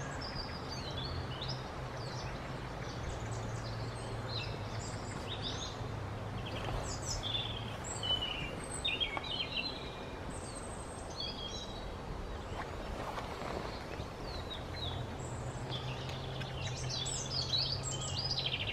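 Small songbirds calling and twittering on and off, many short high chirps from several birds, over a steady low hum that drops away in the middle and comes back near the end.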